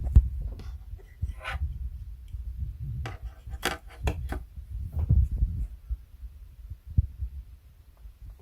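Synology DS115 NAS clicking and knocking irregularly over a low thumping, with a cluster of sharper clicks about three to four seconds in; the clicking is a defect in the unit.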